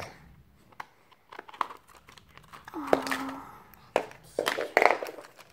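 A shiny plastic L.O.L. Surprise toy wrapper crinkling as it is handled. There are scattered clicks, then a louder burst of crinkling near the end.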